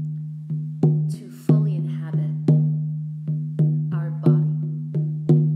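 Music: a steady low drone under struck, ringing percussive notes, two or three a second in an uneven rhythm, each note fading before the next.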